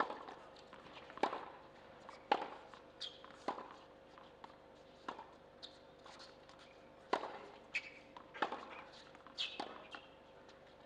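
Tennis ball bounced on a hard court by the server before serving: sharp single knocks roughly once a second, unevenly spaced. Faint short high chirps sound between some of the bounces.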